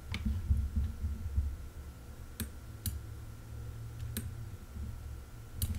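A handful of isolated, sharp clicks at a computer, spaced a second or so apart, over a low steady hum.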